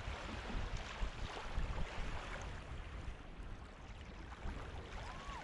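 Small, gentle waves washing up and back over the sand at the water's edge, with a low, uneven rumble under the wash. A short, thin whistle-like tone comes near the end.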